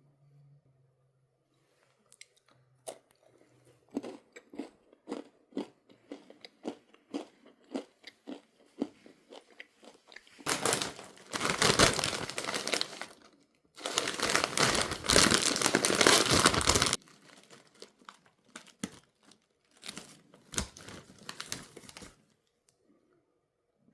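Someone chewing a crunchy snack close to the microphone, with many short crisp crunches. Two longer, louder stretches of crinkling come in the middle, like the snack's plastic bag being handled.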